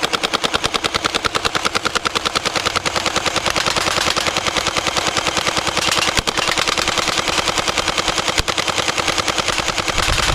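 Toy AK-47 machine gun firing continuously: a steady, rapid rattle of machine-gun fire.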